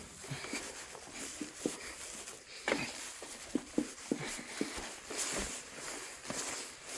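Footsteps: an irregular series of light, short steps.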